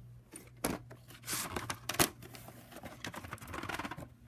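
A VHS tape case being handled: a few sharp plastic clicks and knocks, the loudest about two seconds in, with stretches of rustling and crinkling between them.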